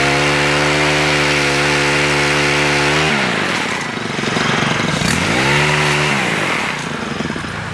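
Stihl HT103 pole saw's 4-MIX engine revved to high throttle and held for about three seconds, then dropping back. A second, shorter rev of about a second follows near the end.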